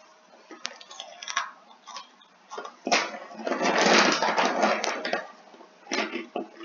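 Someone chewing crunchy spicy snack puffs close to the microphone, with scattered crunches and clicks. A louder rough noise fills about two seconds in the middle.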